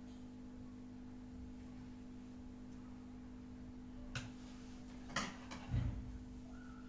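Steady electrical hum, with sharp clicks about four and five seconds in and a dull thump just after.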